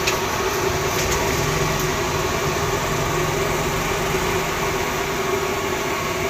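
Steady, even mechanical background noise with a constant low hum, with a couple of faint ticks about a second apart near the start.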